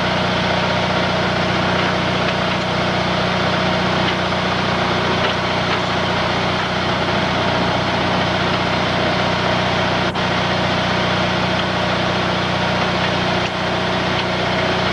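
An engine idling steadily, with one sharp click about ten seconds in.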